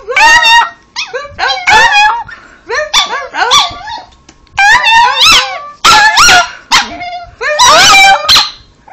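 Chihuahua 'talking': about eight short, loud, wavering yowl-like calls, each bending up and down in pitch, coming roughly one a second.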